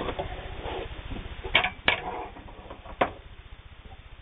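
Electric sewing machine with a fine, rapid low ticking that fades away over the first couple of seconds. Then a few sharp metallic clicks as the sewn denim is handled and taken out from under the presser foot.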